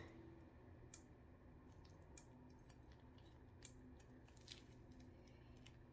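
Near silence: a faint steady low hum with a few scattered light clicks.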